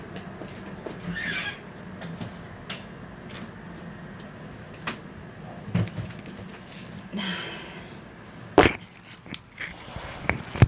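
Handling noise on a Boya BY-M1 clip-on lavalier microphone: fabric rustling and scattered sharp knocks and clicks as it is handled and clipped onto a shirt collar, the loudest knock about eight and a half seconds in, over a steady low room hum.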